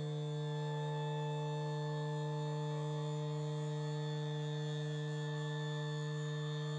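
Electric scissor-lift battery table's motor humming steadily as it raises a battery pack, one constant low hum with no starts or stops.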